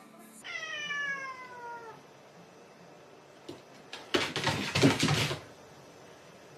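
A cat gives one long meow that falls steadily in pitch. About four seconds in comes a loud, noisy burst lasting just over a second.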